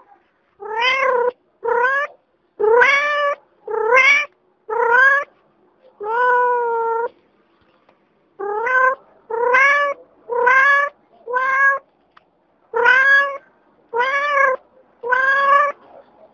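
A cat meowing over and over: about a dozen short meows, each rising slightly in pitch, with a pause of about a second and a half partway through.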